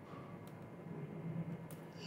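Quiet room tone: a faint low hum, with two brief faint clicks, about half a second in and near the end.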